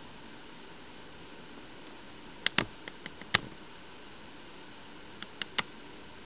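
A handful of sharp ticks over a steady faint hiss: a quick cluster of about five about two and a half seconds in, then three more about five seconds in.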